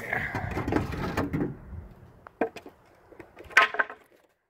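Wooden board being pulled out and handled: about two seconds of scraping and rubbing, then a few separate knocks and a short clatter about three and a half seconds in.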